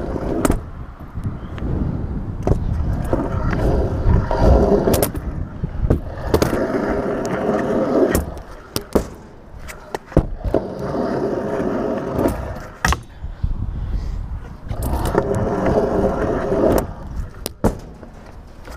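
Stunt scooter wheels rolling over skatepark tarmac and ramps. The rolling noise swells in long surges and dips briefly between them, broken by sharp clacks and knocks.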